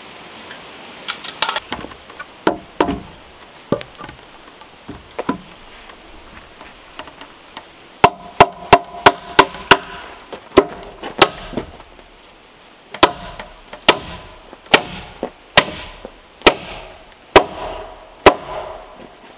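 Hammer blows on a pine log as it is fastened to timber posts: a few scattered hits, then a quick run of strikes about halfway in, then heavy ringing blows about once a second near the end.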